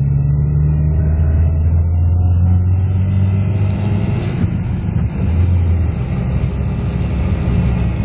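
Car engine and tyre noise heard from inside the cabin while driving: a steady low drone.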